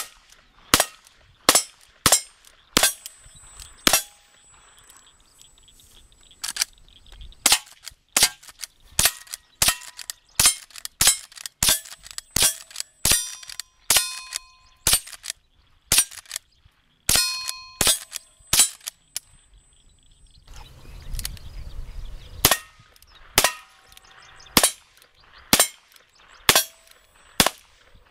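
A rapid string of .22 rimfire gunshots from a single-action revolver and a lever-action rifle, fired about one every half-second to second with a short break about two-thirds of the way through. Many shots are followed by the brief ringing ping of a steel target being hit.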